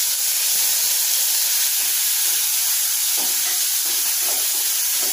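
Chopped onion, garlic and tomato sizzling in hot oil in a nonstick kadai. About three seconds in, a spatula starts stirring through them, about two strokes a second.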